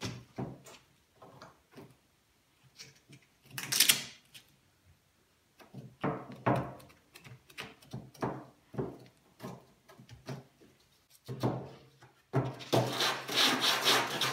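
Longboard with 80-grit sandpaper rasping back and forth over partly cured body filler on a car's steel front fender. It starts as a series of separate strokes, one louder about four seconds in, then becomes quick continuous strokes for the last two seconds.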